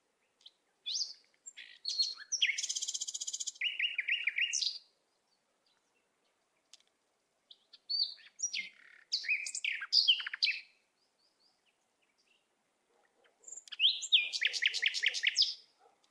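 A songbird singing in three phrases of high chirps, quick sweeps and fast trills, with silence between the phrases.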